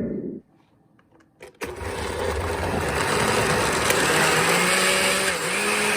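Countertop blender switched on about a second and a half in and running steadily, blending fruit and juice into a smoothie. Its motor pitch rises slightly a little past the middle.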